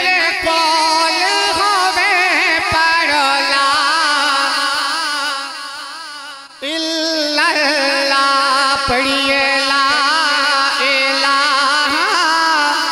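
A man singing a Punjabi devotional naat into a microphone, in long wavering, ornamented notes. His voice fades briefly a little past the middle, then comes back loud on a new phrase.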